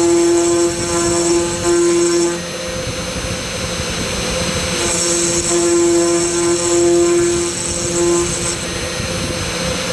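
Hobby CNC router engraving plywood with a small ball end mill: the spindle runs with a steady tone, and a louder whine with a hiss of cutting comes in two long stretches. It breaks off for about two seconds between them and again near the end.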